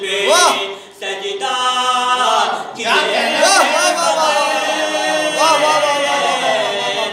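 A man chanting devotional verse in a sung, melodic style into a microphone, his long held notes bending up and down in pitch, with a brief break between phrases about a second in.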